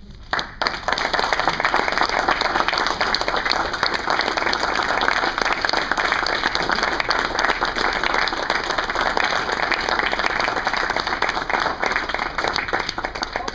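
Audience applauding: many hands clapping in a dense, steady patter that starts abruptly about half a second in.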